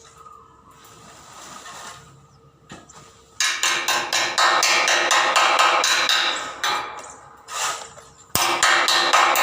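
Electric arc welding: a loud, dense crackle that starts abruptly about three and a half seconds in, breaks off near seven seconds and starts again about a second later.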